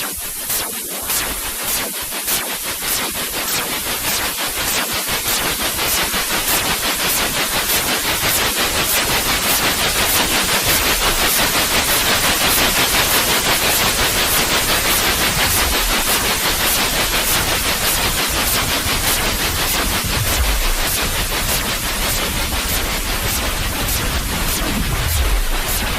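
Steady, loud white noise: an even hiss across the whole range, with faint regular ticks high up and a couple of low rumbles near the end.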